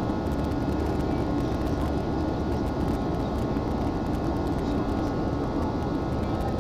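Steady cabin roar of an Airbus A320-family airliner in flight, heard from a window seat beside the wing-mounted jet engine: engine and airflow noise, with a faint steady whine from the engine.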